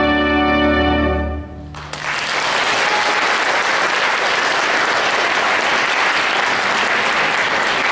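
An orchestra holds a long final chord that stops about a second and a half in, ending the piece; the audience then breaks into steady applause that carries on.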